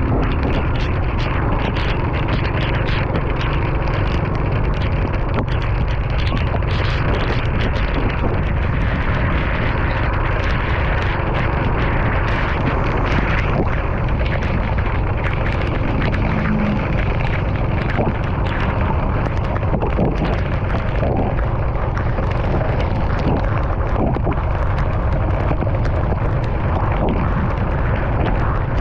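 A car driving in the rain: a steady low rumble of road and wind noise, with the hiss of tyres on the wet road and many small ticks of rain throughout.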